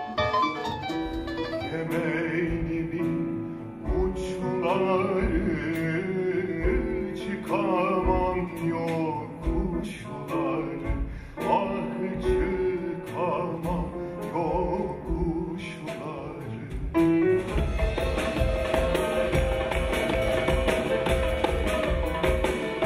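Live jazz performance: piano notes at first, then a man singing with drums, and from about seventeen seconds in an instrumental passage with drum kit, darbuka and double bass.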